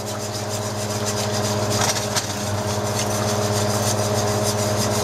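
A wire whisk scraping round a cast-iron skillet as it stirs thick milk gravy, in repeated strokes, over a steady low hum.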